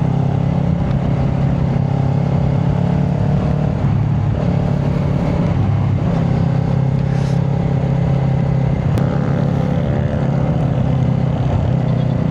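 Kawasaki Ninja 400's parallel-twin engine with a Yoshimura exhaust running at steady revs under way, its note dipping briefly about four seconds in before settling back.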